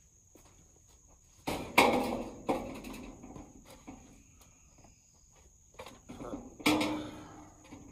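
Corrugated metal roof panels clattering and flexing as they are handled, with a burst of bangs and rattles about two seconds in and another loud bang near the end, each ringing briefly as it fades. A high, steady insect drone runs underneath.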